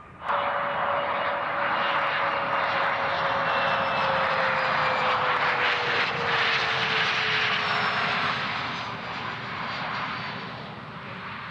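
Challenger 850 business jet passing close on its landing approach: the noise of its twin rear-mounted turbofans, with a whine that slowly drops in pitch as it goes by. The sound starts abruptly and fades over the last few seconds.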